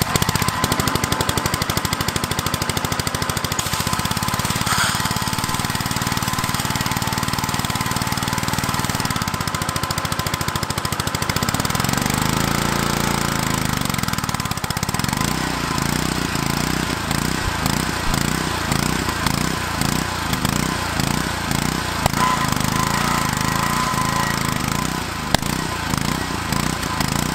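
Honda GCV160 single-cylinder engine running, with a rise and fall in speed about twelve to fifteen seconds in as the choke is switched off. After that the engine surges in a quick uneven pulse, about twice a second: the hunting idle that the owner puts down to the original carburetor.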